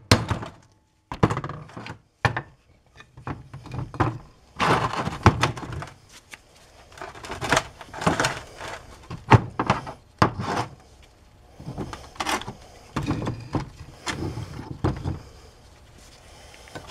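Irregular series of hammer blows and metal clanks as the worn rear wheel bearing of an ATV is knocked out of its heated cast hub carrier, which sits on wooden blocks, so many strikes land as dull thunks.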